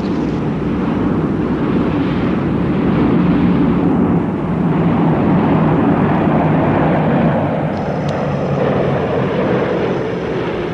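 Steady, loud drone of heavy engines, swelling through the middle and easing off near the end.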